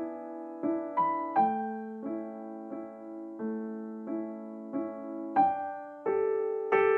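Background piano music: a slow melody of struck notes and chords, each ringing and fading before the next.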